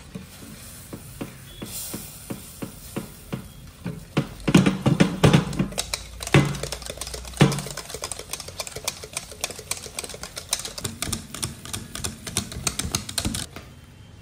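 Rapid clicking and tapping of kitchen utensils, about three to five taps a second, with a cluster of heavier knocks around the middle.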